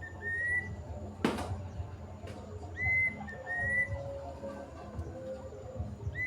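Kedasih cuckoo whistling its song: pairs of clear, high whistled notes, a short note followed by a slightly rising one, repeated about every three seconds. A single sharp knock sounds about a second in.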